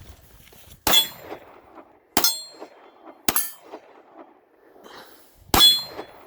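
Four sharp pistol shots, the first three about a second apart and the last after a longer gap, each with a short metallic ring.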